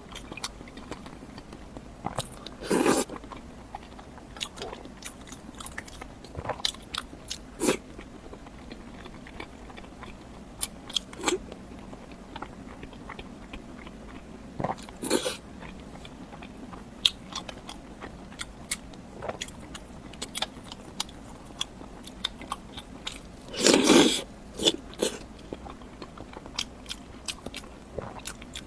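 Close-miked eating sounds: bites, chewing and wet mouth clicks, with louder crunchy bites about three seconds in, in the middle, and near the end.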